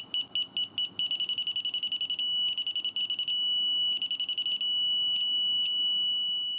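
VANPO digital torque wrench's buzzer beeping as the applied torque climbs to its 20 ft-lb set point. High-pitched beeps quicken into rapid beeping, break off twice and start again, then become a steady tone once the set torque is reached.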